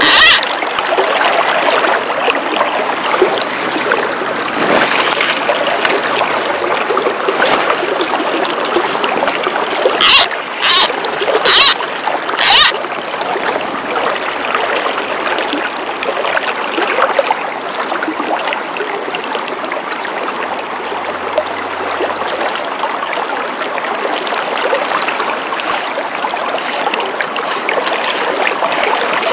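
A spate river running high, its water rushing steadily over stones. About a third of the way in, four short, sharp knocks come in quick succession, less than a second apart.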